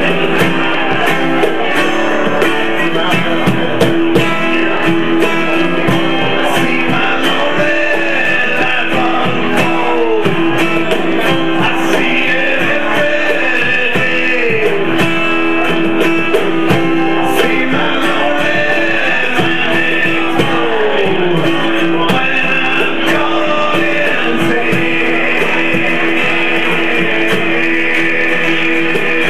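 Live acoustic guitar strumming with a man singing over it.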